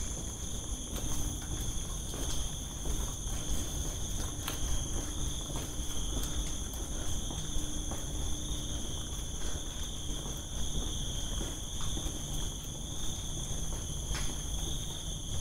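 Insects trilling in a steady, high-pitched chorus of several even tones, over a low rumble, with a few faint clicks.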